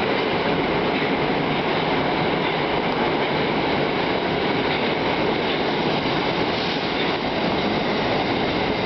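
Moscow Metro train running along the track, with a steady loud rumble of wheels on rails and no pause.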